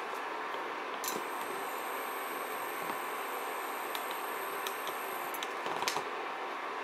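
Portable induction cooker running with a ceramic pan of oil heating on it: a steady fan-like hiss with a faint hum, and a thin high-pitched whine from about a second in until a little past five seconds. A few faint clicks sound during it.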